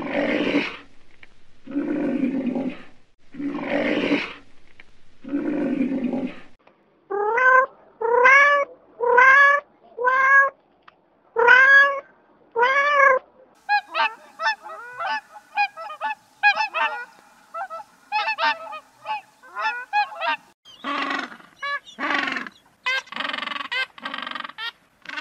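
A series of animal calls in three runs. First come four long, breathy calls, then six pitched calls that each rise and fall, then a quick string of many short calls.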